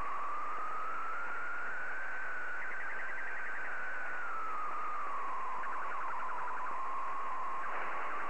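An unidentified warbling signal on the 80-metre amateur band, heard through a receiver's audio over band hiss. It is a single whistling tone that slowly rises, falls and starts rising again, with stretches of rapid fluttering pulses. The operator takes it for possible RF interference.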